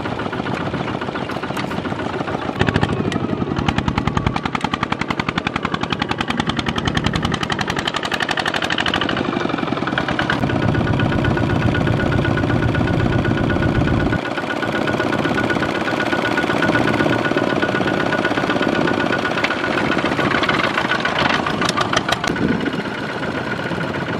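Single-cylinder diesel engine of a two-wheel walking tractor running hard under load, with a rapid, even beat as it hauls a loaded trailer through mud. The deeper part of the sound drops away abruptly a little past halfway.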